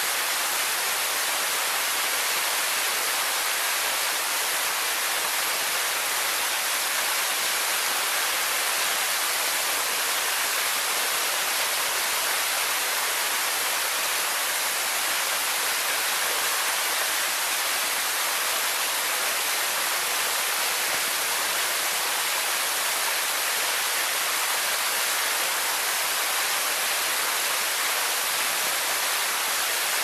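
Waterfall splashing down into its plunge pool: a steady, even hiss, bright with little low rumble.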